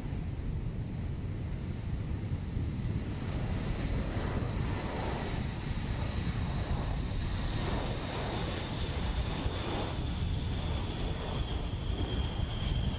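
B-52 bomber's eight jet engines at takeoff power during its takeoff roll: a steady heavy rumble with a high turbine whine that slides slightly lower toward the end.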